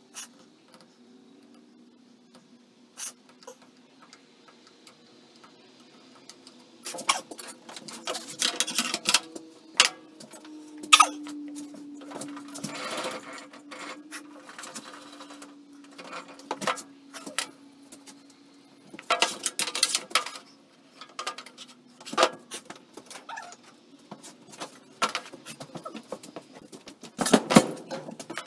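Knocks, clicks and scraping of wooden boards and tools being handled and set down on a table saw's iron top, in several short clusters with louder bursts of a second or two, over a faint steady hum.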